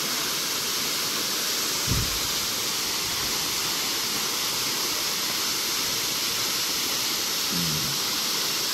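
Steady rushing hiss of river water flowing over rock. A brief low thump comes about two seconds in.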